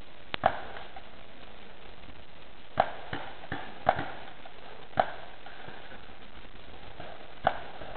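Paintball markers firing: about six sharp, separate pops at uneven intervals, two close together near the start and then single shots about a second or more apart.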